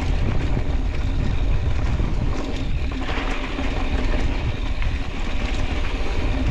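Mountain bike rolling fast down a hardpacked dirt trail: a steady rumble of tyres on dirt and gravel with wind buffeting the microphone, and short rattles and clicks from the bike over small bumps.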